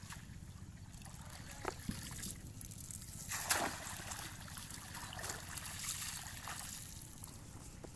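Water splashing and dripping as a cast net is hauled out of shallow water and lifted clear, water streaming from the mesh. Several irregular splashes, the loudest about three and a half seconds in.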